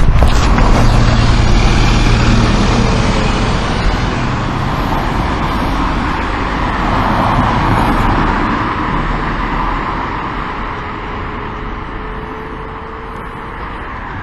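Road traffic: motor vehicles passing close by, one going by about a second in and another swelling up and passing around seven to eight seconds in, after which the traffic noise fades.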